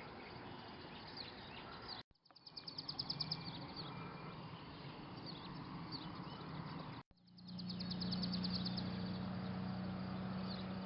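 Wild songbirds singing and calling outdoors: many short chirps and whistles, with a rapid trill at about ten notes a second. The sound drops out abruptly twice, and a steady low hum runs under the birds in the last few seconds.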